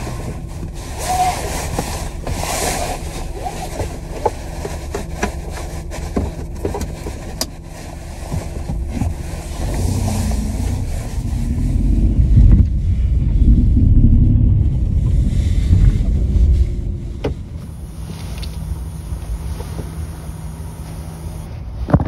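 Car engine running, heard from inside the cabin: a steady low hum that swells into a louder rumble for several seconds around the middle, with a few light clicks.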